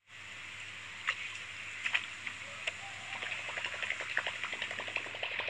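Small splashes and drips of water as a fishing lure is dangled and dipped at the water's surface, a few sharp plips standing out over a steady hiss. From about three seconds in, a fast, even run of light ticks.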